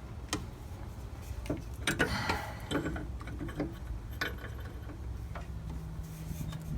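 Irregular light ticks and clicks, scattered a few at a time over a low steady hum, from hand work at the Beetle's brake master cylinder.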